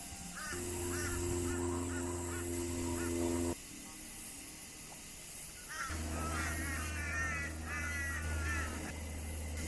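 Background music: held low chords in two blocks, cutting off sharply about three and a half seconds in and coming back about two seconds later, with short chirping notes repeated over them.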